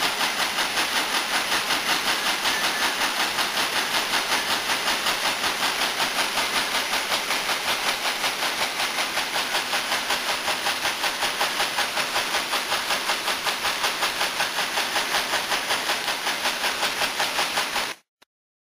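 Multi-needle quilting machine, upgraded with a servo-controlled conversion, running in a steady rhythmic clatter at about four to five strokes a second. It stops abruptly near the end.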